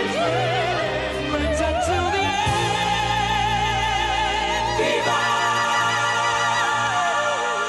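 Operatic singing with wide vibrato over orchestral backing. The voice climbs to a long held high note, the low accompaniment drops away about five seconds in, and the voice slides down near the end.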